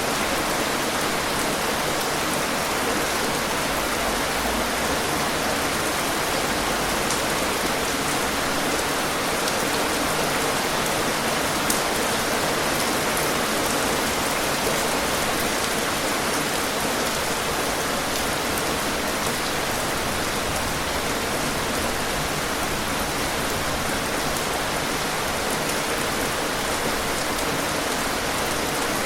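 Steady rain falling on a surface, an even dense hiss with scattered raindrop ticks; one slightly louder drop or click about twelve seconds in.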